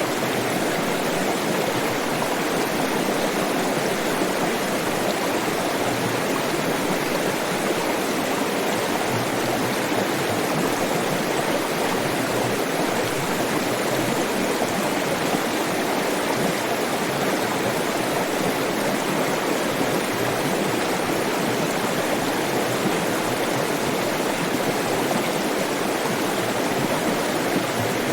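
Flowing water of a stream, a steady rushing with no change in level.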